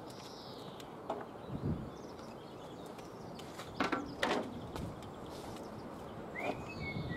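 A few light knocks and clatters of tools and timber being handled, the loudest two about four seconds in, over steady outdoor background noise. Short bird whistles sound at the start and again near the end.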